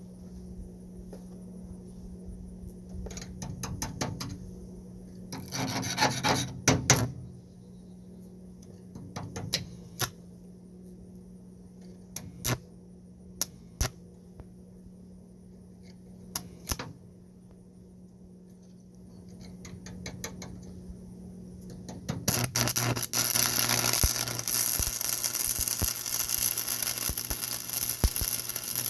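Scattered metal knocks and short scrapes over a steady low hum, then about 22 seconds in a loud, continuous crackle of an electric welding arc starts up on the steel mount.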